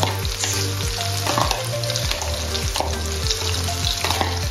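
Diced red onion and garlic sizzling steadily as they fry in oil and a little butter in a non-stick wok.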